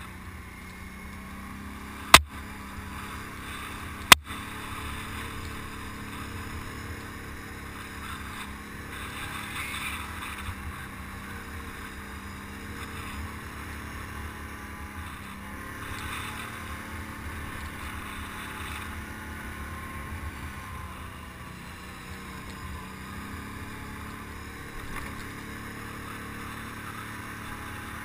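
ATV engine running steadily as the machine climbs a rough dirt trail, with two sharp knocks about two seconds apart a few seconds in.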